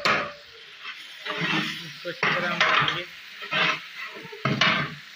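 A long-handled metal spatula scrapes and stirs whole spices through onions frying in ghee in a large metal degh. There are about five scraping strokes over a steady sizzle.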